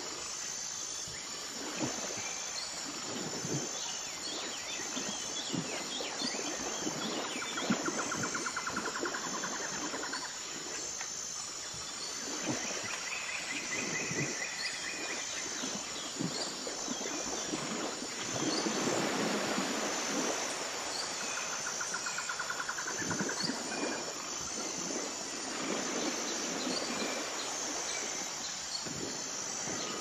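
Rural outdoor ambience: insects chirping in a steady, rapidly pulsing high tone, with occasional trills, and a swell of rushing noise about nineteen seconds in.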